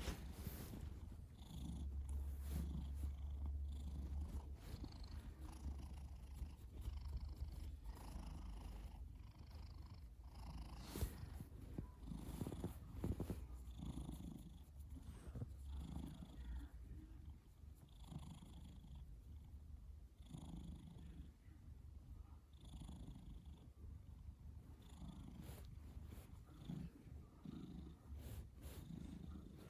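Cat's faint, low, rhythmic rumble, repeating with its breathing, which the owner calls snoring.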